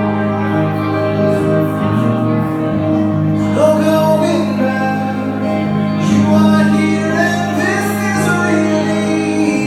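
Live electric guitar playing steady, held, layered notes, with singing coming in about three and a half seconds in.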